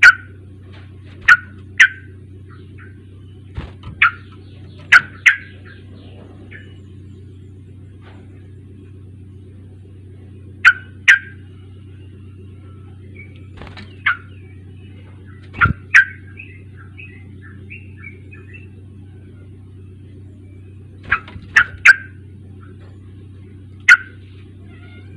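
Yellow-vented bulbul (trucuk) song: short, loud calls, often in pairs or threes, coming every few seconds, with softer chattering between them, over a steady low hum.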